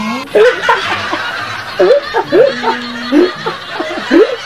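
A man snickering and laughing in several short bouts of breathy, pitched bursts.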